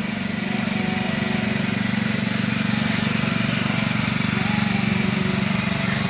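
Small engine of an antique-style ride car running steadily with a fast, even putter as the car drives along its track.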